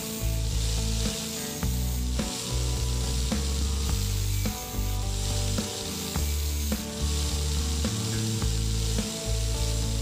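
Electric angle grinder's abrasive disc grinding the tip of an old drill bit held against it by hand: a steady, gritty hiss over the motor's hum, easing off briefly every second or two as the bit is lifted and pressed back on.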